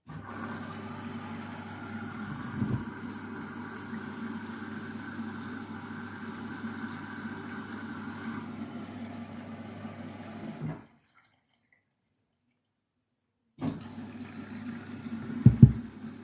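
Candy washing machine drawing in water through its inlet valve at the start of a wash cycle: a steady rushing of water over a low machine hum. Two short thumps come through, one a few seconds in and a louder one near the end. The sound cuts out completely for about three seconds past the middle, then resumes.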